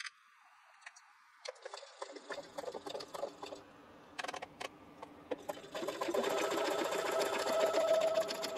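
Brother sewing machine: a few scattered clicks, then the machine starts up about six seconds in and runs steadily, sewing a tight zigzag (satin) stitch around the edge of a fused applique.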